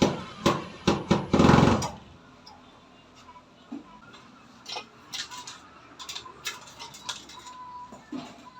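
A few loud knocks and a short clatter in the first two seconds, then lighter scattered clicks and taps, as of parts and tools being handled.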